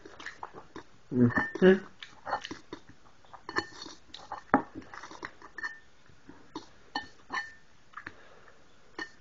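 Metal fork tapping and scraping against a ceramic bowl of scrambled eggs, with chewing, in many short irregular clicks. About a second in, a brief low vocal sound is the loudest thing.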